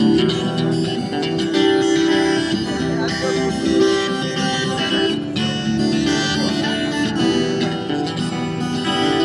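Acoustic guitar strummed in steady chords, with no singing: an instrumental passage between lines of the song.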